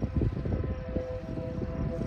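International Harvester 856 tractor running with a Vermeer 5400 round baler: an uneven low rumble with a steady high whine held over it.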